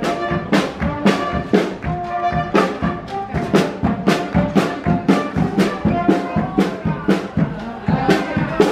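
Upbeat background music led by brass horns over a steady beat of about two beats a second.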